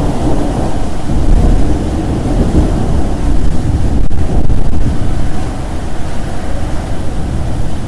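Heavy rain falling as a steady hiss over a deep, rolling rumble that swells and eases, the sound of a rainstorm.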